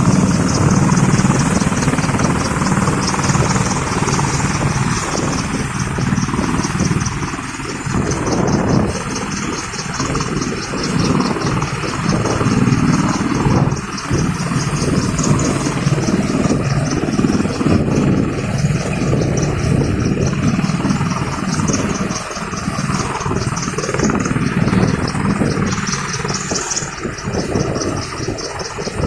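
Helicopter running close by, its rotor blades giving a fast, steady, rhythmic chop over the engine's drone.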